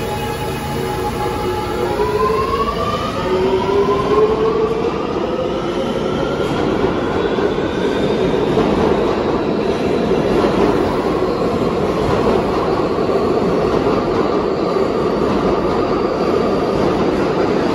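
New York City Subway Kawasaki R211A train pulling out of a station. Its whine of several tones rises in pitch over the first several seconds as it accelerates, then gives way to a steady loud rumble of the cars passing on the rails.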